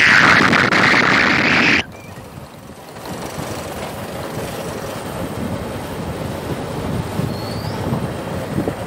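Two-wheeler riding along a road: steady engine and road noise with wind on the microphone. It starts under a loud hiss that cuts off abruptly about two seconds in.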